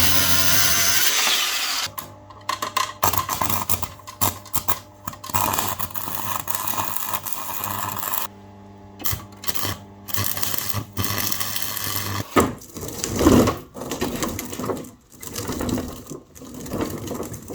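A power tool runs for about two seconds and then stops. After it come many quick metallic clicks and knocks over a steady low hum, with a few louder knocks near the end.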